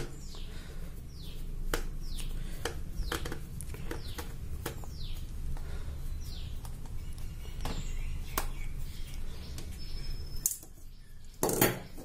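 Small screwdriver turning out the screw of a plastic toy RC remote's battery cover, with scattered small clicks and scrapes of metal on plastic. Faint high chirps falling in pitch repeat about every second through the first half, and a short voice sound comes near the end.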